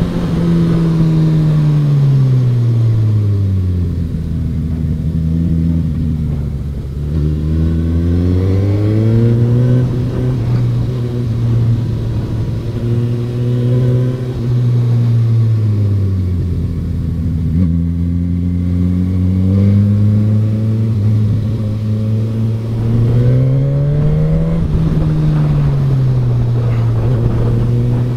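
Suzuki GSX-S1000F's inline-four engine heard from the saddle while riding, its note falling as the throttle is rolled off and climbing again as it opens up, several times over.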